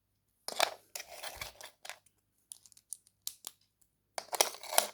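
Plastic Lego plates being handled and pressed together: bursts of clicking and scraping, loudest about half a second in and again near the end.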